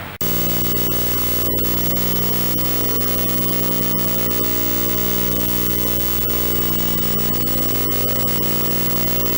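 A loud, harsh electronic buzzing drone with many overtones, cutting in abruptly just after a brief dropout and holding steady in pitch and level.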